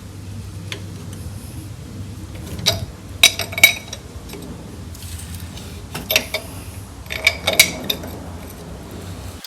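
Hand tools and loose metal engine parts clinking and rattling in three short clusters, the work of unbolting and lifting off the intake manifold of a Type 4 VW engine, over a steady low hum.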